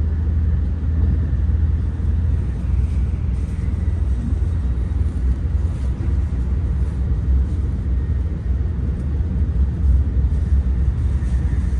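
Steady low rumble of a Shinkansen bullet train running at speed, heard from inside the passenger car.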